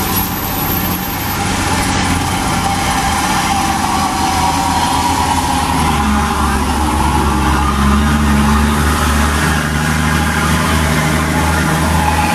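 Diesel engines of heavy dump trucks, a Mitsubishi Canter and then a Hino 500, running under load as they pass close by one after another. A steady low engine drone that grows a little louder about halfway through.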